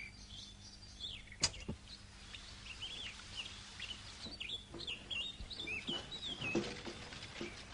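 Birds chirping in short, bending calls, with a single sharp knock about a second and a half in.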